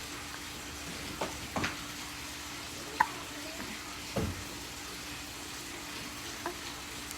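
Baby hiccupping: a few short, sudden sounds at irregular intervals over a steady background hiss.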